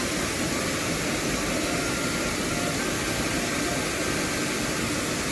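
Mountain stream running, a steady even noise of flowing water.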